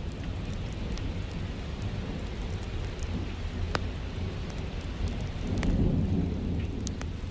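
Steady rain with a low roll of thunder that swells about five seconds in. Scattered sharp crackles from a fireplace fire sound over the rain.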